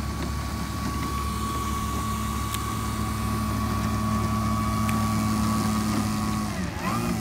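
Electric motor and propeller of a Hangar 9 Carbon Cub RC plane running at low throttle on the ground, a steady whine. Near the end the pitch dips and wavers as the throttle changes, then settles lower.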